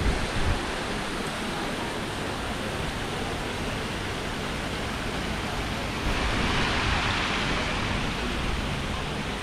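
Fountain jets splashing into a shallow stepped pool, a steady watery hiss that grows louder for a couple of seconds past the middle.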